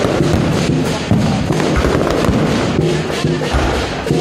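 Aerial fireworks bursting overhead, a dense run of crackles and pops, over loud music.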